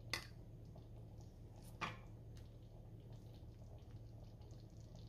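Thick moong dal being ladled from a pan into a serving bowl: faint wet slops and drips, with a couple of soft taps, the clearest about two seconds in.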